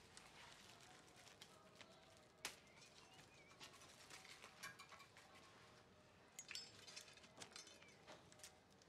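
Near silence: faint quiet ambience of scattered small clicks and scrapes, with one sharper click about two and a half seconds in and a few faint bird chirps.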